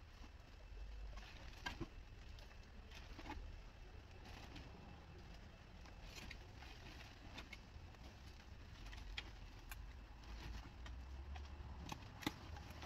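Faint scattered clicks and crackles of old roofing debris being picked up by hand and dropped into a plastic trash bag, at irregular moments over a low steady rumble.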